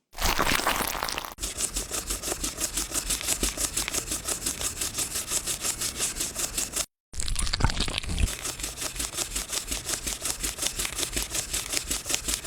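A brush scrubbing over a dirty coin in fast, even strokes, about eight a second, broken by a sudden cut to silence about seven seconds in.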